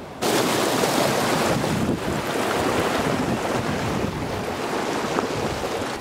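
Shallow river water rushing over rocks, a loud steady hiss that starts abruptly about a quarter second in.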